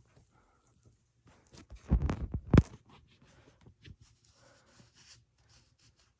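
Handling noises at close range: a short burst of rustling and knocks about two seconds in, ending in one sharp knock, then a few faint clicks and taps.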